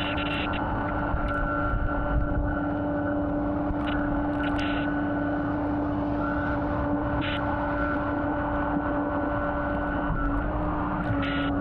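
A motor running steadily: a constant droning hum over a low rumble, with a few brief higher-pitched blips on top.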